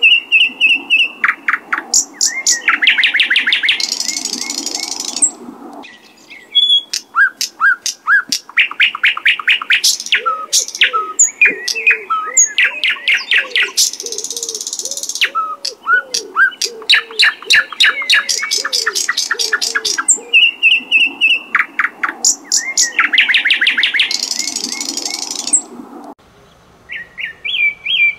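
Songbirds singing: fast runs of repeated chirps and trills, each ending in a buzzy, hissing stretch of song, the same phrase returning about every ten seconds. Softer, lower calls sound underneath in the middle. Near the end the song changes to a different bird's short, sharp chirps.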